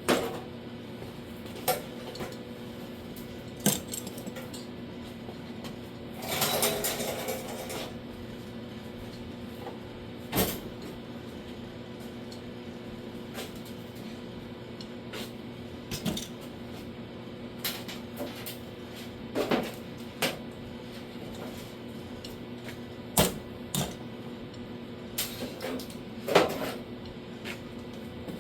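Scattered knocks and clinks of tools and metal parts being handled on a bench, with one longer scrape about six and a half seconds in, over a steady low hum.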